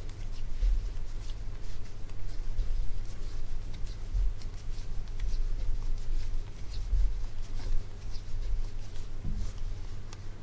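Knitting by hand on circular needles: faint scattered clicks of the needle tips and rustle of the yarn as stitches are worked, over a low rumble with occasional dull bumps.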